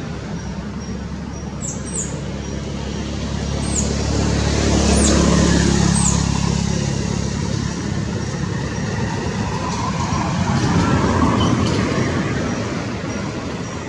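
Road traffic: motor vehicles passing, their engine and road noise swelling to a peak about five seconds in and again around eleven seconds. A few short high falling chirps sound over it in the first half.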